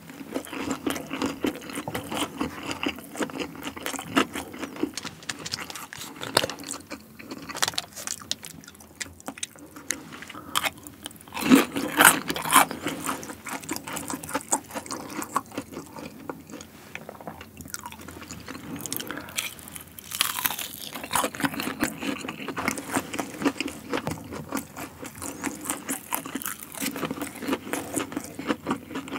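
Close-up chewing and crunching of crispy boneless fried chicken, a steady run of crisp crackles with a few louder bites, about twelve and twenty seconds in.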